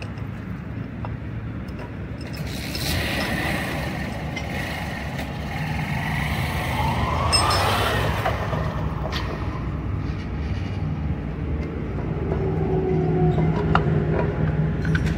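Road vehicle noise: engines running with a steady low rumble, and a rising whine about halfway through.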